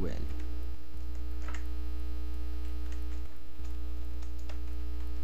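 Steady electrical mains hum picked up by the recording microphone, with a few faint clicks.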